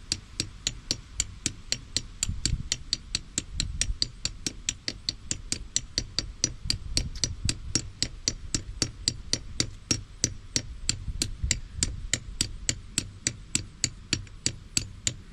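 Steady mechanical ticking, about four sharp clicks a second, over a low rumble.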